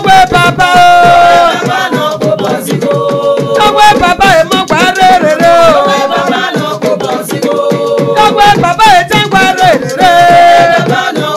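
Music: a woman singing a melody with long held and sliding notes over busy percussion.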